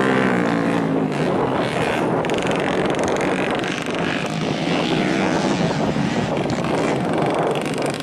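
Modified underbone motorcycle engines racing on a dirt track, a steady buzzing, with one engine note dropping in pitch just after the start.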